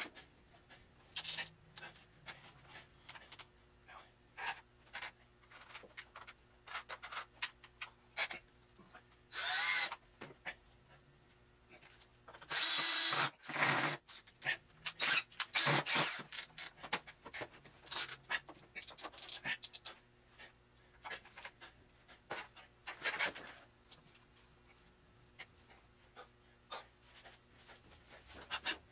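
A cordless drill run in several short bursts of about a second, the loudest near the middle, amid many clicks, knocks and rattles of tools and drill bits being handled.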